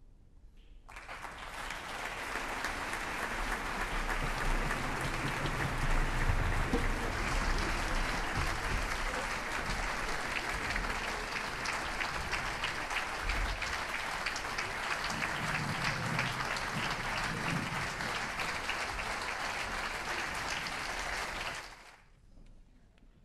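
Concert audience applauding, starting about a second in and cutting off abruptly near the end.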